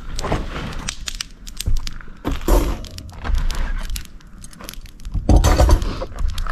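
Wood campfire crackling and popping, with many sharp snaps. Two louder bursts of noise come about two and a half and five and a half seconds in.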